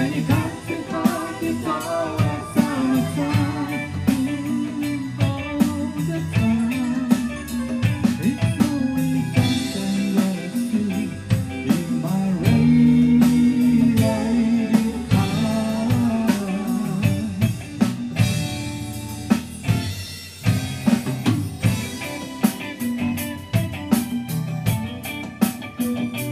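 A live rock band playing a song: electric guitar, electric bass and drum kit, with singing over them.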